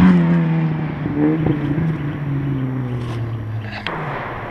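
Rally car passing close at speed and pulling away down the stage. Its engine note is loudest as it goes by, then falls in pitch and fades as it recedes. There is a brief rev about a second in and two sharp cracks near the end.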